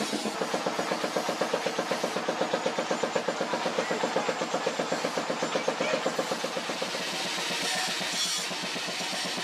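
Background music with a fast, even drum beat that gives way to a steadier hiss about seven seconds in.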